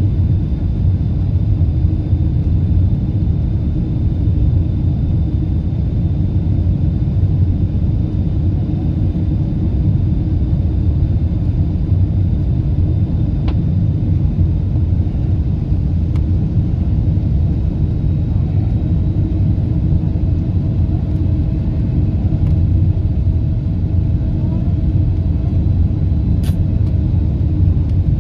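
Steady low rumble of cabin noise inside a Boeing 747-8 airliner on approach, from its engines and the air rushing past the fuselage, with a thin high whine throughout. A short click comes about halfway and another near the end.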